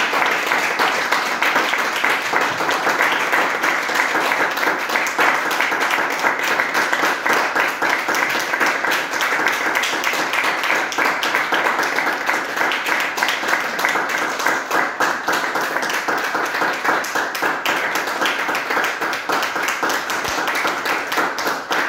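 Audience applauding: dense, steady clapping from many hands that eases slightly near the end.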